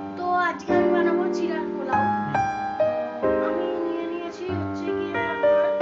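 Background instrumental music: a slow melody of held notes that change every half second or so.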